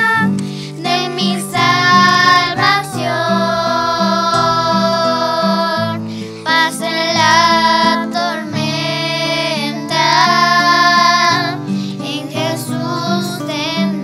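Young girls singing a Spanish-language hymn over an instrumental backing track.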